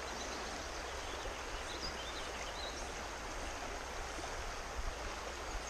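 A creek running high and fast after rain: a steady, even rush of flowing water. A few faint high chirps come about two seconds in.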